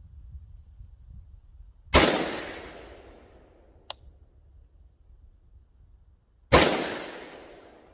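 FN SCAR 17S semi-automatic battle rifle in 7.62×51 firing two single shots about four and a half seconds apart, each with a long echoing tail. There is a light click between the shots.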